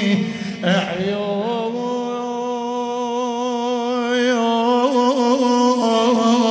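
A male radood (Shia eulogy reciter) chanting a latmiya poem in Iraqi Arabic. He stretches one word into a long, level sung note, then adds wavering ornaments near the end.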